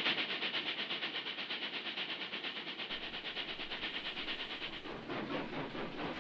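Steam train running at speed: a fast, even, rhythmic hissing beat of about six or seven strokes a second, which changes character about five seconds in.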